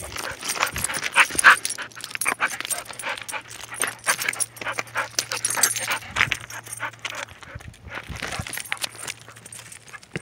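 A dog panting and whimpering with excitement, over a dense crunching and clatter of loose stones underfoot.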